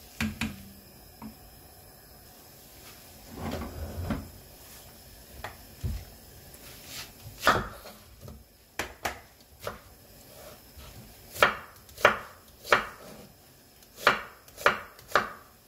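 Kitchen knife cutting an onion on a wooden cutting board: sharp knocks of the blade on the board, three about half a second apart, a short pause, then three more near the end. A few quieter scattered knocks come before them.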